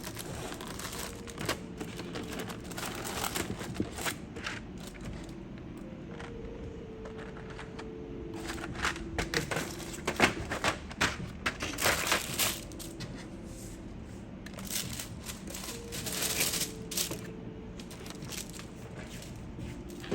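Crinkling and rustling of keycap-set packaging being handled and opened, with scattered light clicks and knocks, busiest in the middle of the stretch.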